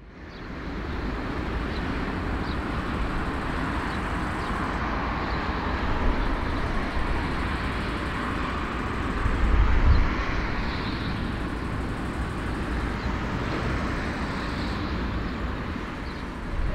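Airbus A340-300 airliner's four jet engines running at low taxi power: a steady rumble and hiss that fades in over the first second.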